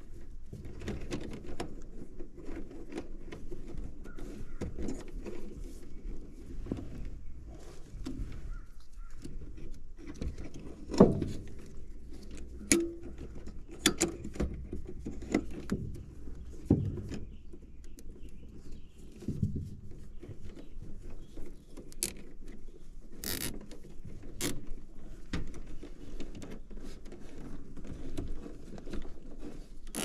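Hands handling wiring in a heat pump's electrical compartment: rustling of wires and sleeves with scattered clicks and taps of wire ends and metal. A louder knock comes about eleven seconds in, and a few sharp ticks come later.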